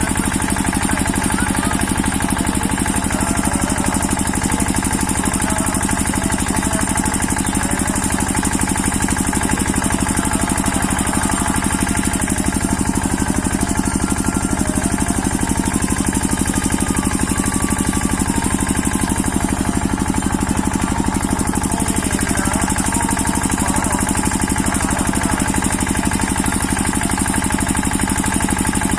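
A steady, loud engine-like running sound with a rapid, even pulse that does not change.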